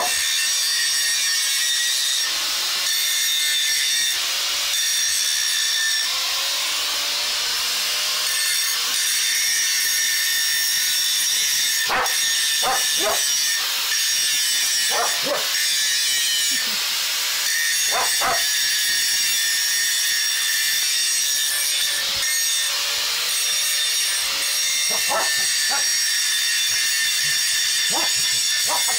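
Angle grinder with a cut-off disc cutting through a metal pipe: a steady high-pitched whine with a grinding hiss. Short barks from a dog break in several times, about halfway through and again near the end.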